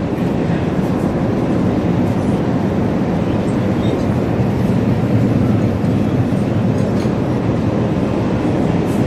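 Steady, even drone of an Airbus A380 airliner cabin in cruise flight: engine and airflow noise.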